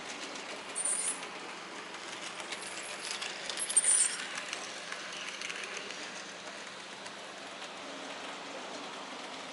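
Model steam locomotive running on a model railway track, its wheels clicking over the rail joints, loudest as it passes close about four seconds in.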